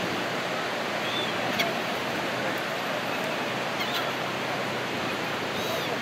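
Steady wash of ocean surf with faint, distant voices of people, a few short high bird chirps, and a single brief click about a second and a half in.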